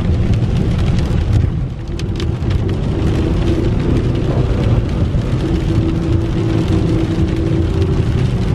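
Inside a vehicle's cabin while driving on a wet road in the rain: a steady low rumble of tyres and engine, with rain on the windshield. A faint steady hum joins about halfway through.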